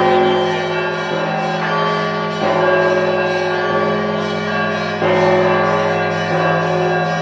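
Russian Orthodox monastery bells being rung (kolokolny zvon). Smaller bells are struck afresh every second or two, their tones overlapping and ringing on over the steady deep hum of a large bell.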